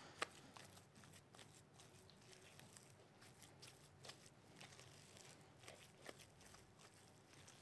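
Faint, irregular squishing and ticking of minced chicken and spices being mixed in a bowl, with one sharper click just after the start.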